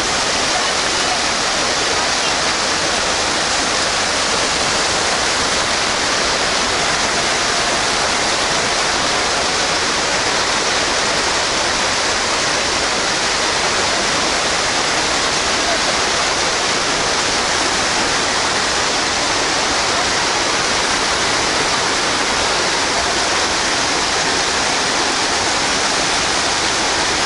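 Water gushing from an inlet into a concrete trout-farm pool, a steady, unbroken splashing rush.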